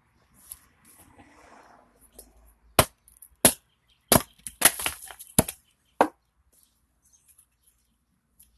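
Axe blows splitting a cherry spoon blank on a chopping stump: about six sharp wooden knocks between about three and six seconds in, as the blank splits apart.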